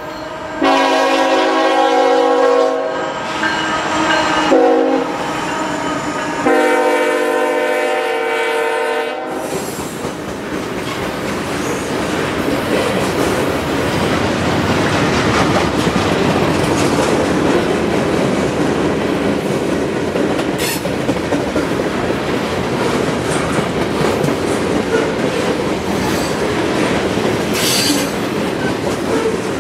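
A Norfolk Southern freight locomotive's chime horn sounds in long and short blasts, ending with a long blast. The horn then gives way to the steady rumble and clickety-clack of freight cars rolling past.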